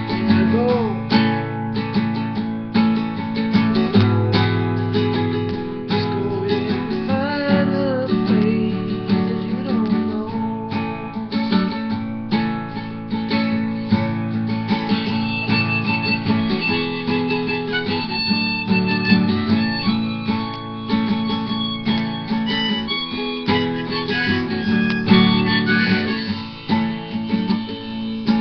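Nylon-string classical guitar being played, chords strummed and picked in a steady rhythm.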